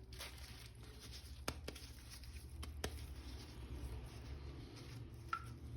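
Faint scattered light clicks and taps over a low steady hum.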